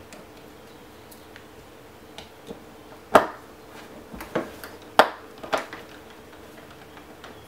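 Scattered sharp clicks and light taps of a screwdriver working the screws of an airsoft gearbox shell, with the parts being handled. The two loudest come about three and five seconds in, with fainter ones around them.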